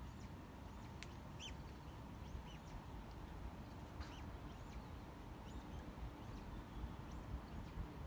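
Small songbirds chirping outdoors: short, high, arching notes, a few each second, scattered through the whole span, over a steady low rumble.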